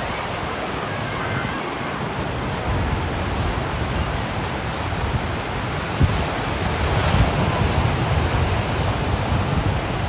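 Ocean surf breaking and washing up the beach, a steady rush, with wind buffeting the microphone in gusts that grow stronger in the second half.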